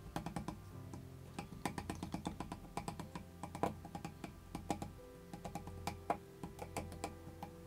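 Many small irregular clicks and taps of a stir stick against a plastic cup as yarn is pushed down into acrylic pouring paint, over faint background music.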